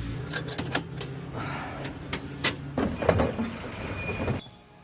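A car idling, heard from inside the cabin, with several sharp clicks and knocks over it. The engine sound drops away abruptly near the end.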